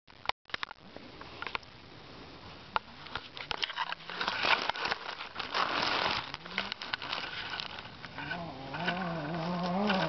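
Sharp clicks and crackly rustling as a handheld camera is moved and set down in dry leaves and grass on the forest floor. From about eight seconds a low, wavering buzz comes in and out.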